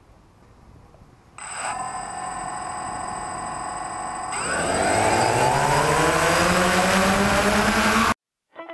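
DJI Phantom quadcopter's electric motors and propellers starting up: a steady whine begins about a second and a half in, then about four seconds in it rises in pitch and gets louder as the throttle goes up for takeoff. The sound cuts off suddenly near the end.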